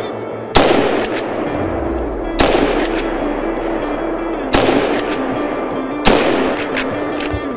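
Four rifle shots from a Merkel RX Helix straight-pull rifle, roughly two seconds apart, each ringing out with a long echoing tail, over background music with sustained tones.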